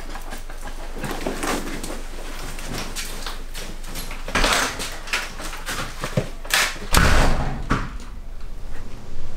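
Scattered rustles and knocks, with a sharp burst about four and a half seconds in and a louder, deeper thud about seven seconds in.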